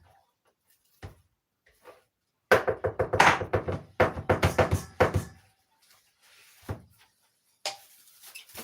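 Plastic cling film crackling and crinkling as it is pulled off the roll and stretched, in two loud spells of a second or so each, with a few separate taps and knocks around them.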